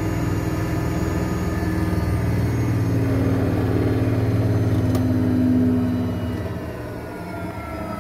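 Washing machine in its spin cycle, the drum motor running with a steady hum that eases off about six seconds in, its whine falling in pitch as it slows.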